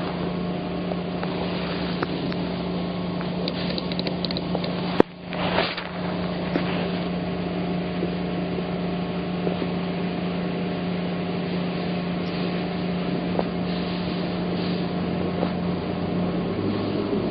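Boat motor running at a steady speed, a constant drone, with one sharp knock about five seconds in.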